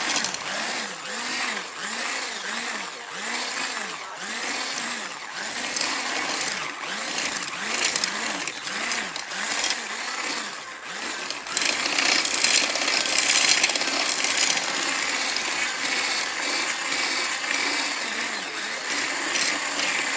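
Corded electric stick blender running in a bowl of dry bath bomb mixture, its motor pitch dipping and recovering a little under twice a second as it churns the powder. The whirring grows louder for a few seconds just past halfway.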